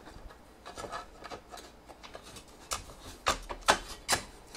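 Glass and mounted photo sliding along the channel of a sectional metal picture frame, rubbing softly with small ticks. A few sharp clicks follow in the second half as the frame's side rail is fitted against the stack, the loudest at about three and a half seconds.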